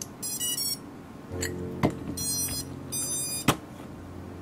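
Tyro79 FPV quadcopter's ESCs beeping their power-up tones through the motors as the LiPo battery is plugged in: three short high-pitched electronic beep bursts, with a few sharp clicks from handling the connector.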